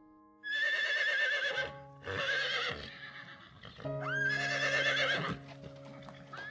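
A horse whinnying three times, each neigh high and quavering, over soft background music.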